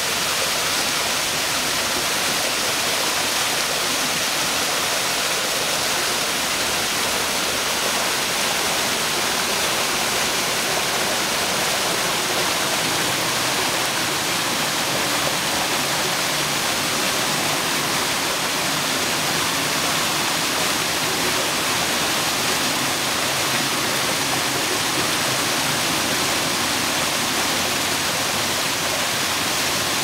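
Small waterfall pouring and splashing down stepped rock ledges: a steady, even rushing hiss that never lets up.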